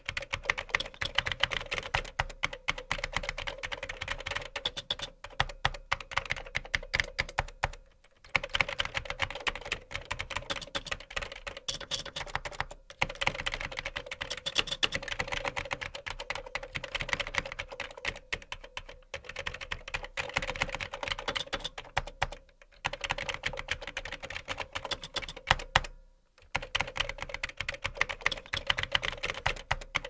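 Fast typing on a computer keyboard: a dense run of key clicks, broken by brief pauses about 8, 13, 22 and 26 seconds in.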